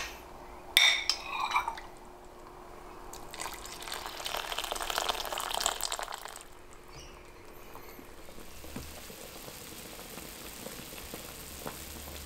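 A ceramic bowl clinks against a metal hot pot twice near the start, with a brief ring, as tofu is tipped in. About three seconds in, liquid is poured into the pot for roughly three seconds, followed by a faint steady hiss.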